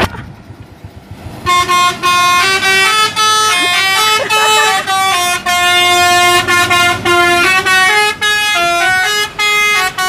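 Basuri (telolet) musical air horn on a Volvo tanker truck playing a tune: a quick run of short horn notes, several pitches sounding together, stepping up and down with brief gaps. It starts about a second and a half in.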